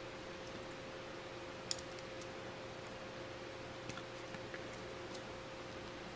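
Faint scattered clicks of small plastic building bricks being handled and pressed together, the sharpest one about a second and a half in, over a steady background hiss with a low hum.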